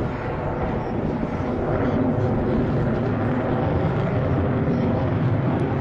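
F/A-18 fighter jet's engines running, a continuous jet noise that grows a little louder about two seconds in.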